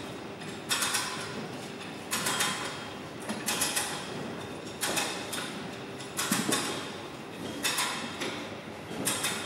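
Stridsvagn 103C's collapsible flotation screen being folded down by hand: a rasping, sliding mechanical noise repeated about every second and a half.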